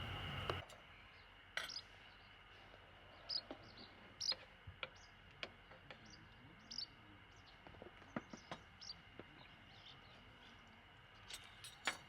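Faint, scattered short bird chirps and a few small clicks over quiet outdoor ambience, after a louder steady hiss cuts off just after the start.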